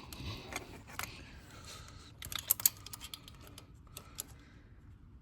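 Small scattered clicks and taps of a fuel-line disconnect tool being worked against a quick-connect fitting, with a quick run of sharper clicks about two and a half seconds in; the tool is too long to release the line.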